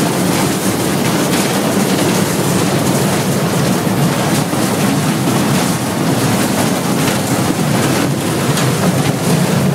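Class M8 ALCO diesel-electric locomotive heard from inside its cab while under way: the diesel engine runs steadily under load, mixed with wind rushing through the open cab door and rumble from the track.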